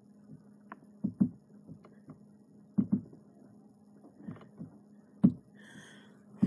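Scattered knocks and taps from objects being handled, the loudest a pair about a second in, another pair near three seconds and a single sharp one just after five seconds, over a faint steady low hum.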